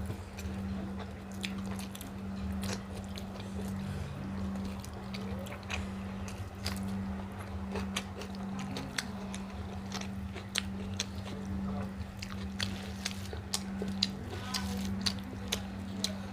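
People eating rice and egg curry: chewing and mouth smacks, with many short, irregular clicks throughout. A steady low hum runs underneath.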